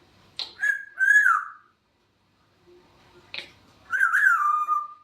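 African grey parrot making whistled calls in two bursts, each opening with a sharp click and ending in a wavering whistle that slides down.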